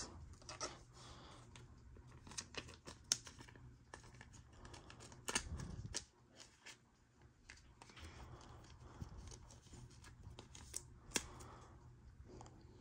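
Faint scattered clicks and light rustling of trading cards being handled, with a slightly heavier knock about five seconds in.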